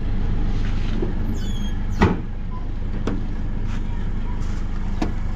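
Toyota Hilux pickup's engine idling steadily, with a sharp knock about two seconds in and fainter knocks near three and five seconds.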